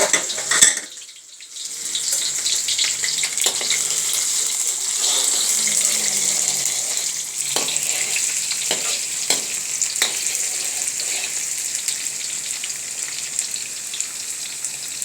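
Chopped onion, garlic and ginger sizzling steadily as they fry in hot oil in a pan. The sizzle drops away briefly about a second in, then returns. There are a few sharp knocks of a utensil against the pan as the food is stirred.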